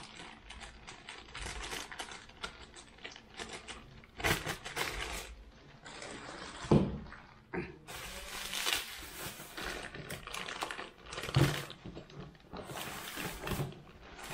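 Plastic bags and bubble wrap crinkling and rustling in irregular bursts as bicycle parts are unwrapped and handled in a cardboard box, with a couple of light knocks.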